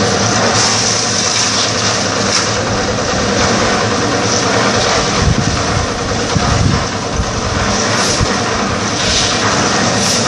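Engine of a portable drum concrete mixer running steadily, with a few knocks about midway.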